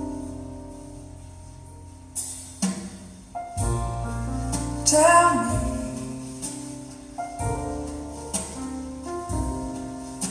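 Instrumental break of a slow ballad recording, held piano chords with a low bass line entering about three and a half seconds in. It is played back through KEF LS50 Meta bookshelf speakers and recorded on a phone.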